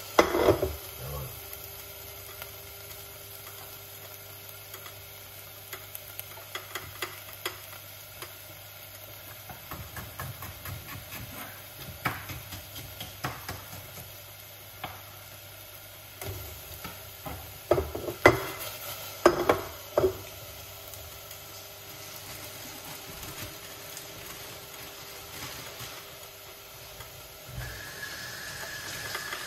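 Sliced bell peppers and tomatoes sizzling and frying in a stainless steel saucepan, with scattered sharp clicks and knocks of the pan and stirring, loudest in a cluster a little past halfway.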